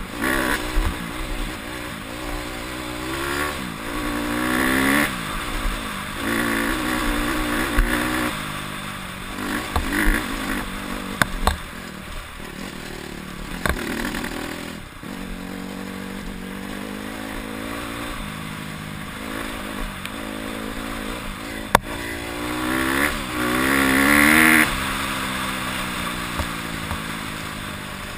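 Honda CRF150R's single-cylinder four-stroke dirt-bike engine under way, revving up and easing off again and again, with its pitch climbing in several strong pushes, the loudest near the end. A few sharp knocks come in between.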